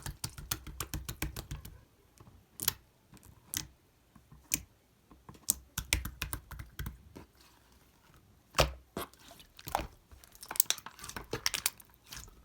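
Slime being pressed and worked by hand, making irregular sharp clicks and pops, some in quick runs, with a few louder pops near the end.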